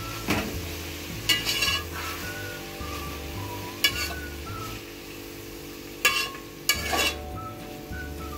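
Metal spoon scraping and clinking against a metal pot as shredded vegetables are stirred while they fry, with a light sizzle underneath. The scrapes come in short bunches, about five across the stretch.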